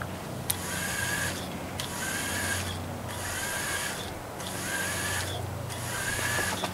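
Twin small electric motors driving a spinning fishing reel through its gears, whirring in an even on-off pattern: about five runs of just under a second each, one roughly every second and a quarter. This is a programmed, evenly spaced reeling pattern.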